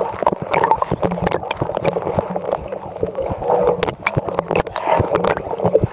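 Water churning and bubbling as a dog paddles in a hydrotherapy pool, heard through an underwater camera's microphone, with many small clicks and knocks throughout.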